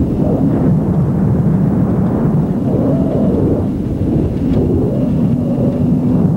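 A truck driving along a road, its engine and road rumble running steadily, with wind buffeting the microphone.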